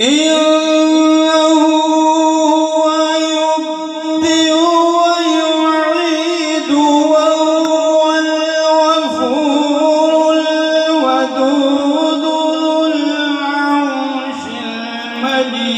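A man reciting the Quran in the long, melodic chanted style of tilawat, amplified through a microphone. He holds drawn-out notes and steps to a new pitch every couple of seconds.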